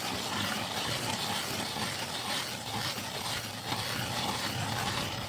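Hand-cranked ice auger boring into lake ice: a steady scraping noise as the blades cut.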